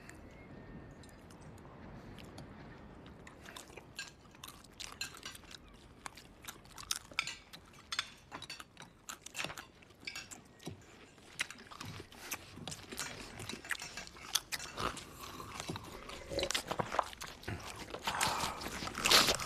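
Close, exaggerated chewing and mouth noises of people eating, sparse at first, then denser and louder toward the end, with a swallow near the end. It is heightened eating noise that grates on a listener who cannot bear it.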